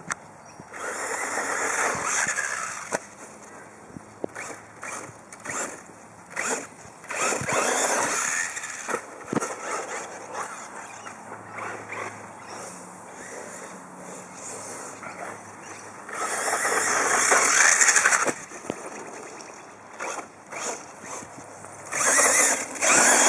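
Radio-controlled car driving on loose dirt: several surges of motor and tyres scrabbling as it accelerates, the loudest about two-thirds of the way through.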